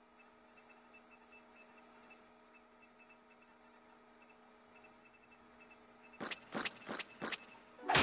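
Cartoon laboratory ambience: a faint steady machine hum of several held tones with a soft repeating blip. About six seconds in, four short sharp sound effects come in quick succession, and a loud crash begins at the very end.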